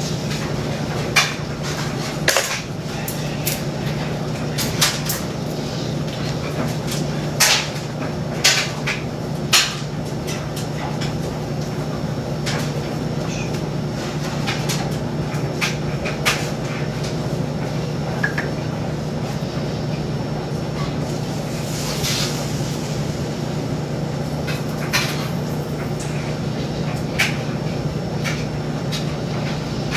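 Kitchen clatter while cooking: scattered sharp knocks and clicks of cookware, utensils and cupboards over a steady low hum.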